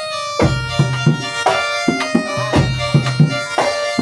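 Traditional music: a reedy, shawm-like wind instrument holds a drawn-out melody over a steady drum beat.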